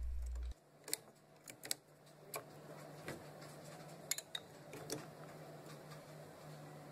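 Scattered light clicks and taps as a magnetic flask clamp and a glass Erlenmeyer flask are set onto an orbital shaker's magnetic platform, over a faint steady hum.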